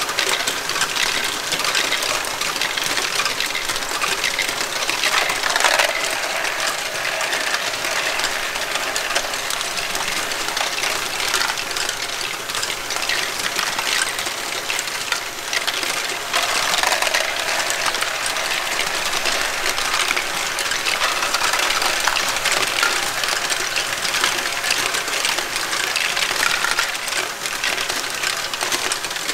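Lego Great Ball Contraption modules running: many small plastic Lego balls clattering and rolling through motor-driven lifts, wheels and chutes, a dense continuous rattle of plastic clicks.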